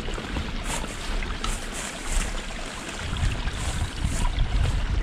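Small, shallow forest stream flowing and trickling as a steady rush of water, with an uneven low rumble underneath that grows stronger in the second half.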